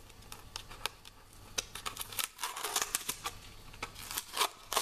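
Masking tape being peeled off a vacuum-formed plastic case: a run of small, irregular crackles and clicks, sparse at first and coming thick and fast from about a second and a half in.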